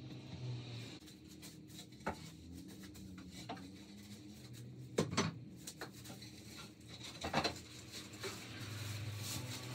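Wooden frame pieces knocking and clattering as they are handled and fitted together, with a few sharp knocks. A cordless drill runs briefly near the start and again near the end with a low steady hum.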